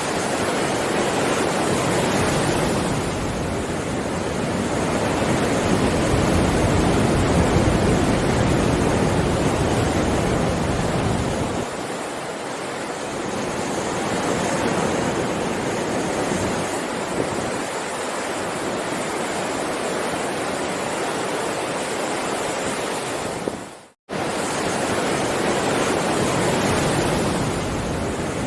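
Heavy ocean surf, a continuous rush of breaking waves that swells and eases. About three-quarters of the way through, the sound briefly fades out and drops to silence for an instant, then comes straight back.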